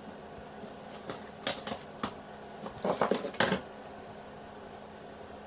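Plastic clicks and knocks of a DVD being handled and loaded into a player: a few light clicks, then a quick cluster about halfway through, over a steady low hum.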